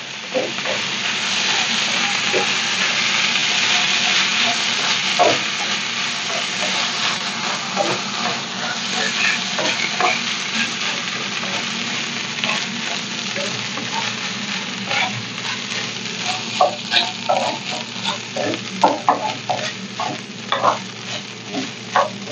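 Washed raw rice sizzling in hot rendered pork fat in a nonstick frying pan as it is sautéed, while a wooden spoon stirs it, scraping and knocking against the pan. The sizzle is strongest in the first few seconds, and the spoon's knocks come more often in the second half.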